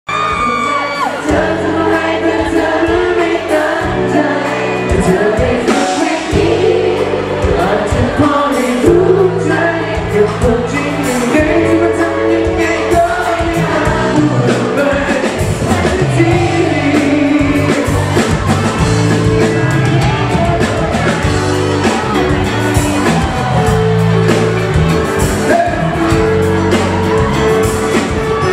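Live band playing a Thai pop song with a male lead vocal, cutting in abruptly at the start.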